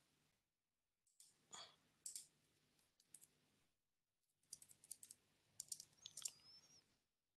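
Faint computer keyboard typing in two short runs of keystrokes with a brief pause between them.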